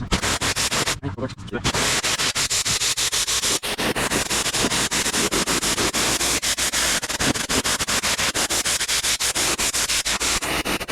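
Pressure washer spraying a pre-treated concrete patio: a loud, steady spray noise with a fast crackle through it.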